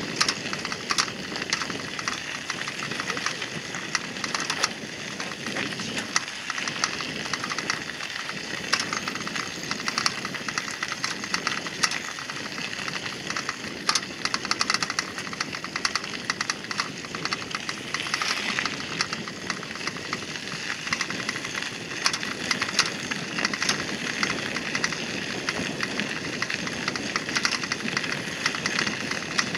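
Bicycle tyres rolling over a gravel path: a steady crunching hiss dense with small clicks and crackles.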